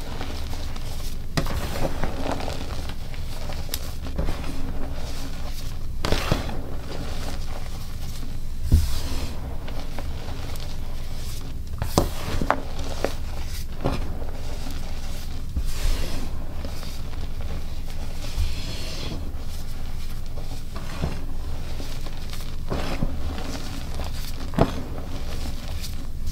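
Dyed gym chalk blocks being crushed and crumbled: irregular powdery crunching with scattered sharp cracks.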